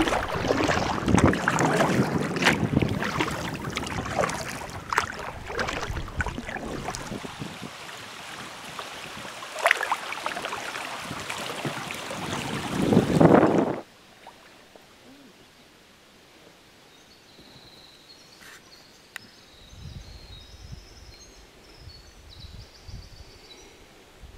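Water rushing and splashing around a kayak moving down a rippling river current, with many short splashes and a loud swell just before it cuts off suddenly about two-thirds of the way through. It is followed by a much quieter outdoor background with a few faint high tones and a low wind rumble near the end.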